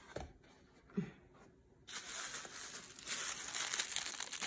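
Tissue paper crinkling and rustling as it is unfolded from around a pair of shoes in a shoe box, starting about two seconds in after a light knock or two.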